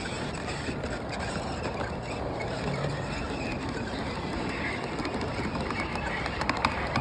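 Large-scale model train boxcars rolling past on a curve of track: a steady rolling noise of wheels on rail, with a few sharp clicks near the end.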